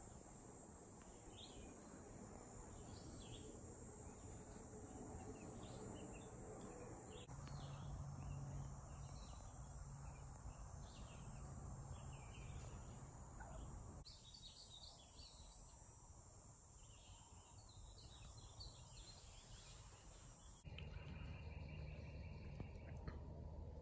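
Faint woodland ambience: short bird chirps over a steady high insect drone and a low rumble, the mix changing abruptly three times.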